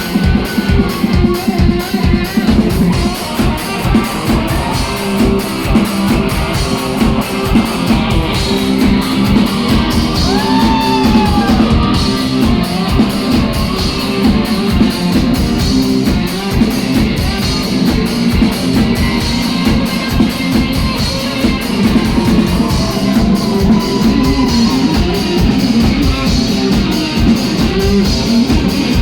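Live rock band playing loud, with electric guitar, a driving drum kit and some singing.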